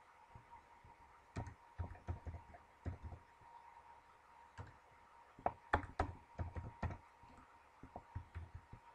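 Keystrokes on a computer keyboard, typed in two short irregular bursts: one about a second and a half in, the other from about five and a half seconds in.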